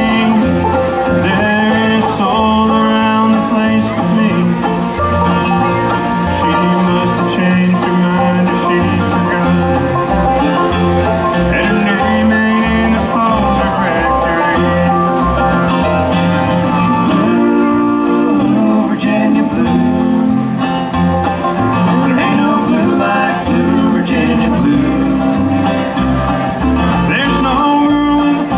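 A bluegrass band playing live: plucked string instruments over a steady, stepping bass line, with no clear words sung.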